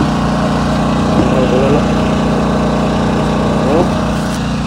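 An engine running at a steady idle, with a few brief faint voices over it.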